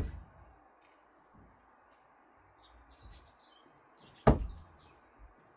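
Two sharp hits about four seconds apart: no-spin thrown screwdrivers striking the target. Small birds chirp faintly between them.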